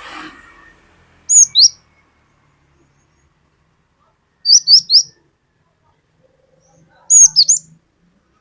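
Cinereous tit (gelatik batu) singing: three short phrases of two or three sharp, high whistled notes, a few seconds apart.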